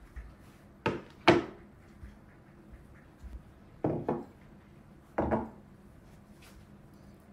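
Four knocks and clatters of things being set down on hard kitchen surfaces: two sharp clacks about a second in, the second the loudest, then two duller double knocks a few seconds later.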